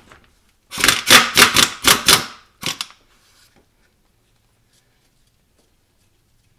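Mallet striking the rear axle's differential cover to break it loose from the housing: a quick, uneven run of about nine loud knocks over a second and a half, then one more knock half a second later.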